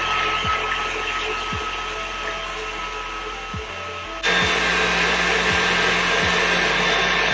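Electric tilt-head stand mixer running its wire whisk through beaten eggs. About four seconds in, the motor steps up abruptly to a louder, higher speed as it is turned up toward high.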